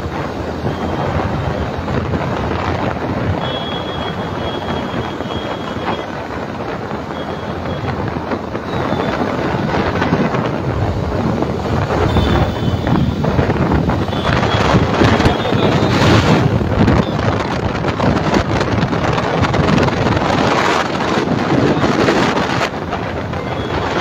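Wind buffeting the microphone while riding a motorcycle through city traffic, a steady rush of moving air and road noise that swells and eases.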